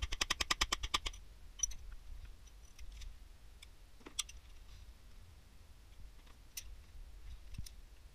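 Socket ratchet clicking rapidly, about ten clicks a second, for about the first second as a bolt is run out of the engine's bottom end. Then a few scattered light metallic clicks and clinks follow.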